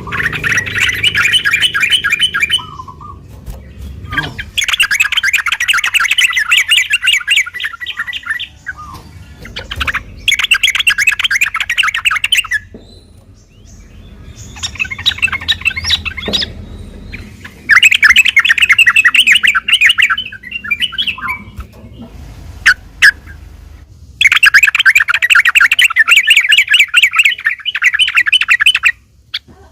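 Yellow-vented bulbul (trucukan) singing its fast, chattering 'ropel' song in repeated bouts of two to four seconds with short pauses between them. This is the kind of song used as a lure to set other trucuk birds calling back.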